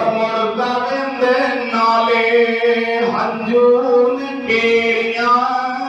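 A man chanting verse solo and unaccompanied, in a drawn-out melodic style, holding long notes that change pitch slowly.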